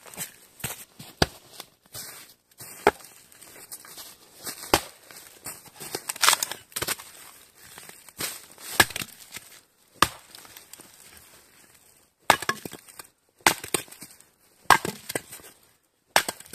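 A series of irregular sharp knocks and crunching scrapes, a dozen or so hard strikes spread unevenly with short pauses between them.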